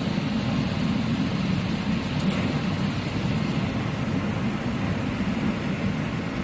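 Dehumidifier running just after being switched on: a steady, low fan whirr.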